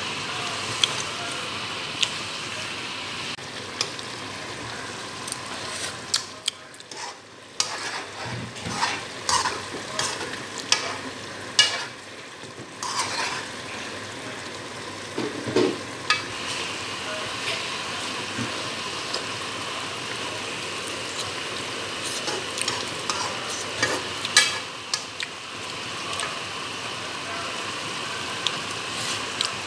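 A pan of liver and chicken gizzard stew with carrots and potatoes simmering and sizzling, while a spoon stirs it, clicking and scraping against the pan many times.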